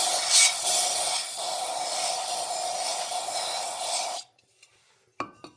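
Aerosol carburetor cleaner sprayed through its straw nozzle into an oil furnace filter canister: one long, steady hiss that cuts off suddenly about four seconds in, followed by a couple of light clicks near the end.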